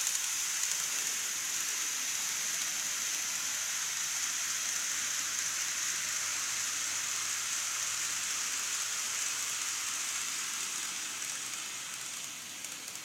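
N-gauge model train, a TOMIX 227 series, running on elevated viaduct track: a steady, hissing rolling noise of wheels on rails and the motor. It fades off near the end as the train runs away from the microphone.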